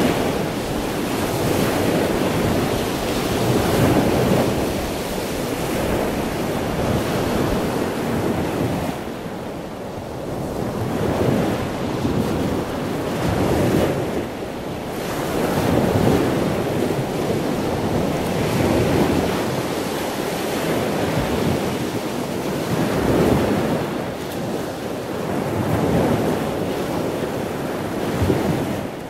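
Loud rushing outdoor noise that swells and fades every few seconds, with no distinct events in it.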